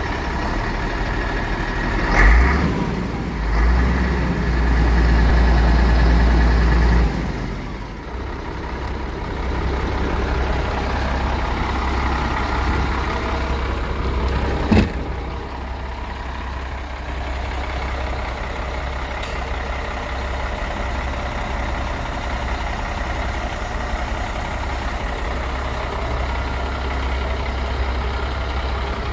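MAN 19.422 tractor unit's six-cylinder diesel engine running at a steady idle, louder between about two and seven seconds in and then dropping back sharply. A single sharp knock about halfway through.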